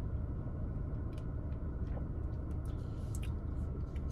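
A person sipping and swallowing thick soup from a paper cup: small, faint wet mouth clicks scattered through, over a steady low hum inside a car's cabin.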